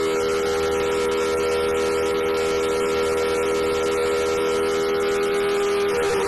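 Emergency alert alarm siren sounding a loud, steady chord of several held tones, which starts to slide down in pitch at the very end.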